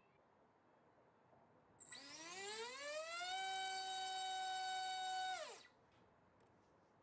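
Small brushless drone motor (BrotherHobby T1 1407-2800KV) turning a two-blade GF 5030 propeller on a 3S pack. It spins up from a stop about two seconds in as a whine rising in pitch, holds a steady high whine at full throttle (about 22,800 RPM) for about two seconds, then winds down quickly to a stop.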